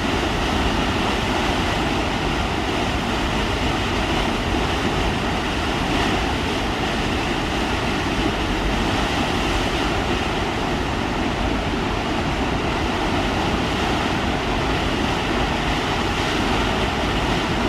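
Steady roar of a waterfall on the McCloud River, white water pouring into the pool below.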